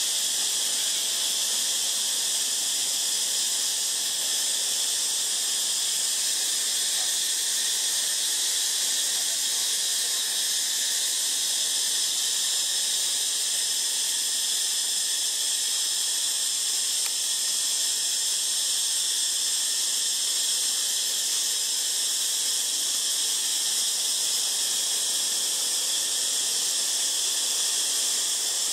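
A steady, high-pitched hiss made of several shrill bands, holding an even level with no breaks or separate calls.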